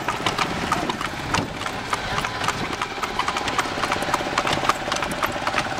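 Horse's hooves clip-clopping on an asphalt road as it pulls a carriage, a quick, even rhythm of sharp hoofbeats, about four or five a second.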